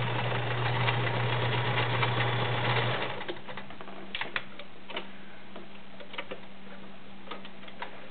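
Kenmore model 1931 convertible sewing machine running steadily while stitching a multi-point zigzag, stopping about three seconds in. Scattered light clicks follow as the fabric is taken out from under the presser foot.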